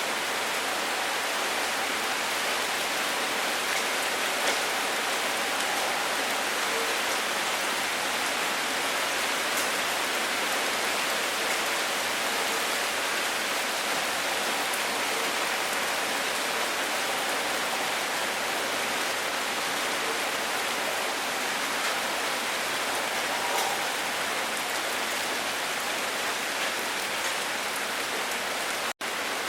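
Steady rain falling on a surface, an even hiss with scattered individual drops. It cuts out for an instant near the end.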